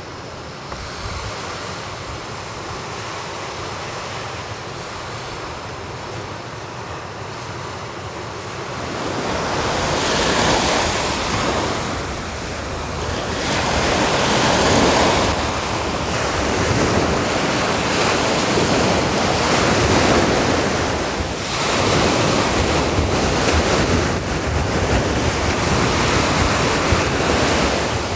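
Sea waves breaking and washing up the shore, the surf swelling and ebbing every few seconds, with wind buffeting the microphone. The first nine seconds or so hold only a quieter steady hiss, before the surf comes in louder.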